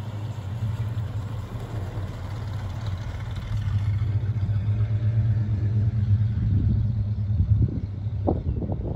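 1966 Cadillac Fleetwood Brougham's 429 V8 running as the car drives away, a steady low hum that grows in the middle and eases near the end. A few short knocks come near the end.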